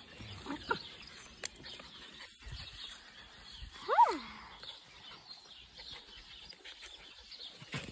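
A puppy held back on its leash gives one high yelp about four seconds in that rises and then falls in pitch. A few faint, short whimpers come in the first second.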